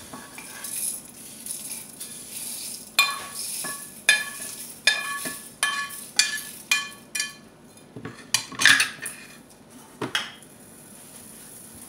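Metal spoon scraping and tapping dry-roasted spices out of a frying pan into a stainless steel blender jar: a run of ringing clinks from about three seconds in, then a few heavier clatters near the end as the pan is set down on the stovetop.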